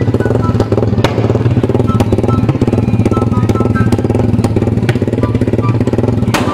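Race-built motorcycle engine running steadily with a loud, rapid exhaust pulse through an aftermarket open exhaust. A sharp crack comes about a second in and another near the end.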